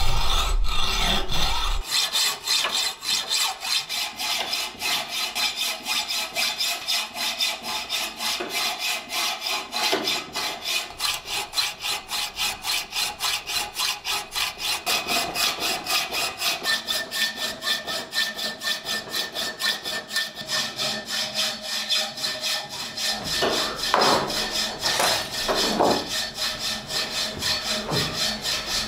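Hand hacksaw cutting through a rusty iron axe head held in a vise, in steady rapid back-and-forth strokes of metal rasping on metal.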